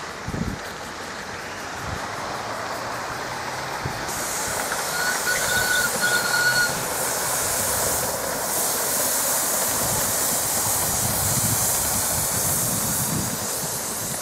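Miniature passenger steam train running past on a raised track, a steady hiss and the running of its wheels on the rails that grow louder about four seconds in as it comes close. A brief high-pitched tone sounds for about a second and a half about five seconds in.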